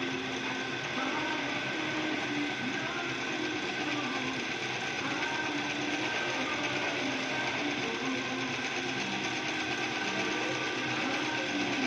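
Drill press running steadily while boring a hole, its motor and spindle whirring evenly with a few faint tones that shift slightly in pitch.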